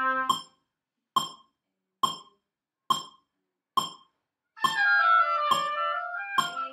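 Oboes play a slow practice passage against a metronome that clicks a little faster than once a second. The oboes break off just after the start, leaving the metronome clicking alone for about four seconds, then come back in.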